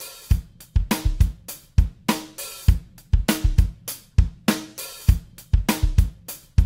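Drum kit playing a steady groove: kick drum, snare, hi-hat and cymbals, with no chords or melody over it yet. This is the drum intro to a backing track.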